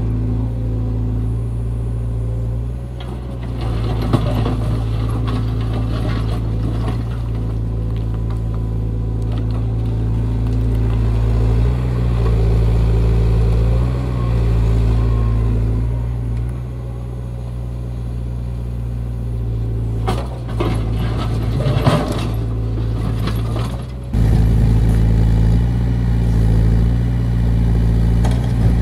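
Menzi Muck A61 4x4 walking excavator's diesel engine running steadily, its pitch and load shifting as the hydraulics work. Bursts of clattering and scraping from the digging come a few seconds in and again about two-thirds of the way through.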